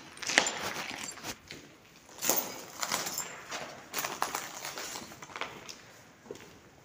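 Footsteps on a concrete floor strewn with grit and debris, uneven steps roughly once a second with scuffs and small crunches.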